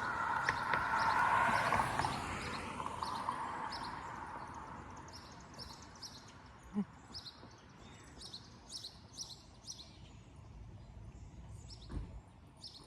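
Birds chirping, short high chirps repeating a few times a second, over a rushing noise that fades away in the first few seconds.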